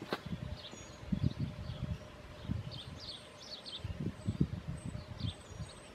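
Small birds chirping in short, falling notes, with a sharp click at the start and a few dull, irregular thumps and knocks from someone moving about.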